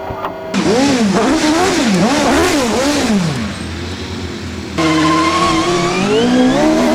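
Racing single-seater's engine blipped repeatedly, its revs rising and falling about twice a second. Near the end it is accelerating away from a standing start, its pitch climbing.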